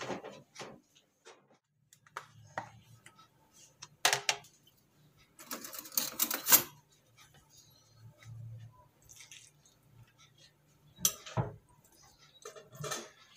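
Kitchen handling sounds: scattered clicks and knocks of a plastic food container and a ceramic bowl being set into a steamer pot, with a louder rustling scrape about six seconds in and a faint low hum underneath.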